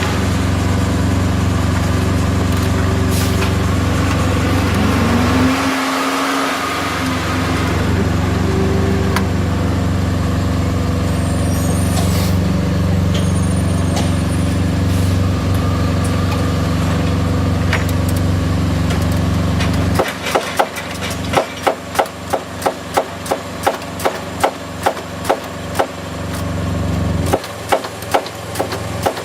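Semi truck's diesel engine idling steadily. From about two-thirds of the way in there is a quick, even run of sharp clicks, about two to three a second.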